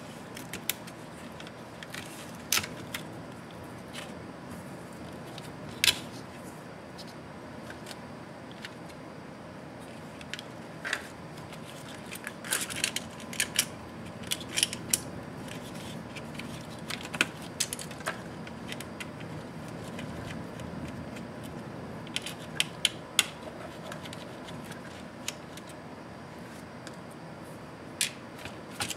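Irregular sharp clicks and taps of a small screwdriver and fingers against a laptop's plastic bottom case as wires and small parts are worked loose, with several quick clicks in a row about halfway through.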